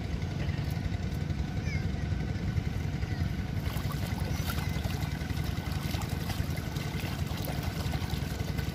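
Water sloshing and splashing as a mesh fishing net is hauled and gathered in shallow muddy water, over a steady low rumble. The splashing grows busier about halfway through.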